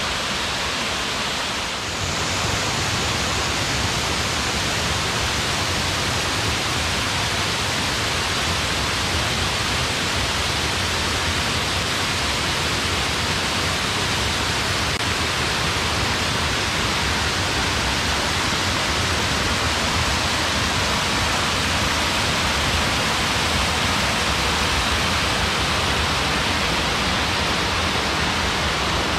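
Wide waterfall cascading over many thin layers of rock, rushing steadily; the rush gets a little louder about two seconds in.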